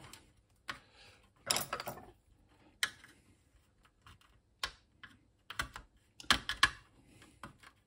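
Handling noise from parts being worked on by hand: a scatter of sharp clicks, taps and short scrapes, busiest about one and a half seconds in and again about six and a half seconds in.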